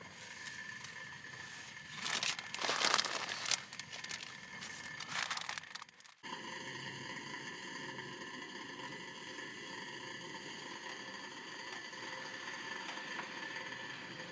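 Crinkling and rustling in a few loud bursts, then an abrupt cut about six seconds in to a steady background hiss.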